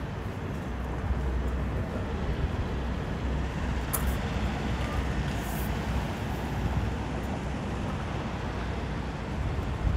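City traffic noise: a steady low rumble of passing vehicles, with a brief sharp click about four seconds in.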